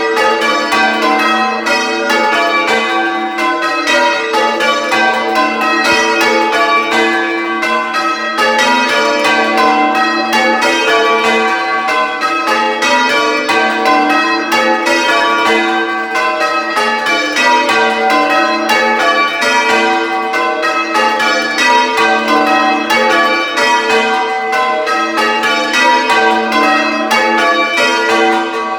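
A ring of six church bells, tenor 12-2-25 in G, being rung in call-changes, heard close up in the belfry. The strikes follow one another in a steady, unbroken rhythm, and each bell's tone rings on under the next.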